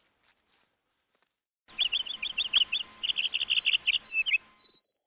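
Chirping of insects starting suddenly after a second and a half of near silence: a quick run of high chirps, then from about three seconds in a steady, high, pulsing trill.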